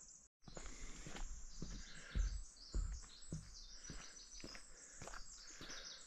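Footsteps walking along a trail at about two steps a second, with small birds chirping in the background.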